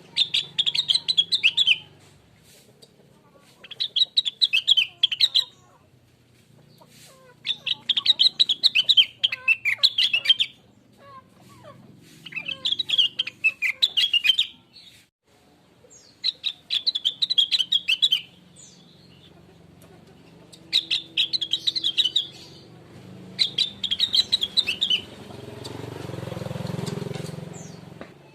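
A Rengganis (cucak wilis) songbird singing in rapid chattering phrases, each about one and a half to two seconds long, repeated about every four seconds. A low rumble swells in the background near the end.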